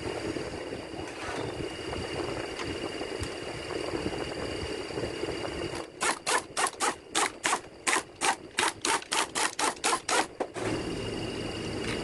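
A steady hum with a thin high whine, then a run of about seventeen sharp clicks, roughly four a second, lasting about four and a half seconds.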